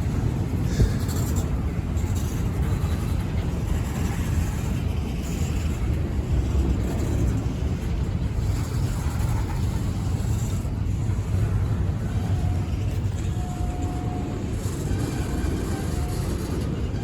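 Steady low rumble of a freight train's cars rolling through a grade crossing, with a few faint short tones in the later seconds.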